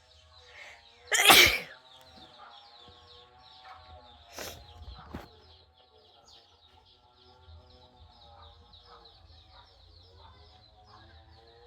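A person sneezing: one loud, sharp sneeze about a second in, then two quieter sneezes about three seconds later.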